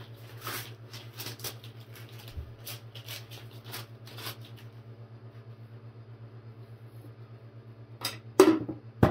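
Painter's tape pressed onto and peeled off a new paint roller cover to pull off lint: a run of short sticky pats and rips for about four seconds over a steady low hum. A few sharp knocks near the end.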